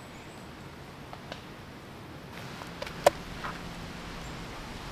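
Quiet woodland background with a faint steady hiss and a few light, scattered clicks, the sharpest about three seconds in.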